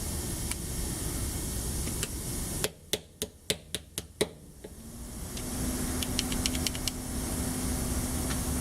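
A quick run of about seven sharp metallic taps and clicks over a second and a half, from small steel parts of a shotgun trigger group being fitted together, followed a couple of seconds later by a few fainter ticks. A steady hiss lies under it, and a low hum comes in about halfway through.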